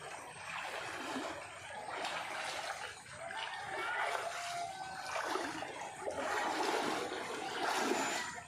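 Water sloshing and splashing as a person wades through a muddy creek, in surges with his strides.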